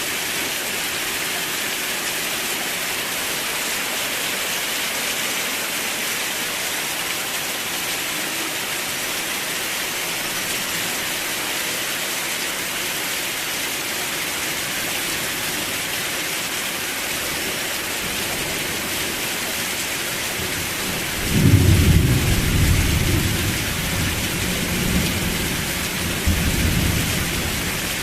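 Steady heavy rain hissing, then about 21 seconds in a loud rumble of thunder breaks in and rolls on, fading away near the end.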